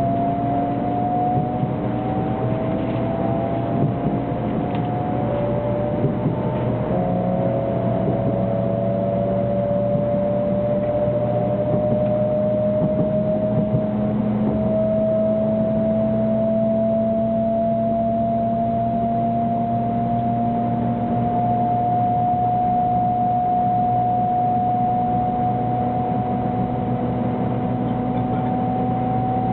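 A 300 Series Shinkansen heard from inside the passenger car, its GTO-inverter traction motors whining over a steady rolling rumble. Several whine tones shift in the first few seconds, then one whine climbs slowly and steadily in pitch as the train picks up speed after leaving the station.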